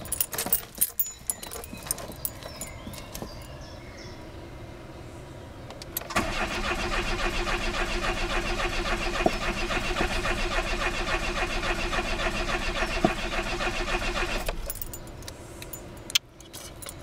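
Keys jangling at the ignition, then the Citroën BX GTI's starter cranking the engine in an even pulsing rhythm for about eight seconds without it catching: the car won't start. The cranking stops and the keys jangle again near the end.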